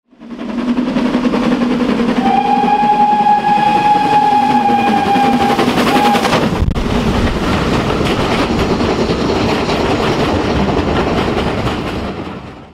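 Steam locomotive passing close, its whistle giving one long blast from about two seconds in and a short second pip just after, over the loud rush of steam and exhaust. The sound fades out at the end.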